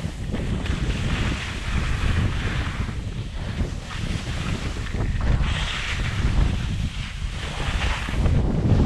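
Wind buffeting a GoPro's microphone during a ski descent, a constant low rumble, with skis hissing over the snow in swells about every second or two as the turns link.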